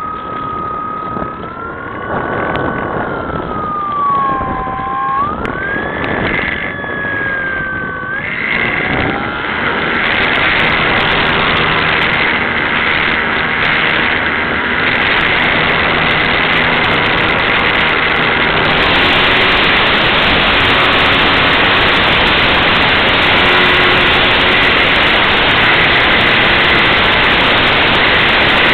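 Electric motor of a radio-controlled Cessna 182 model plane whining, its pitch rising and falling with the throttle, then dropping away about eight seconds in as the motor is cut for a glide. After that, steady wind noise on the microphone.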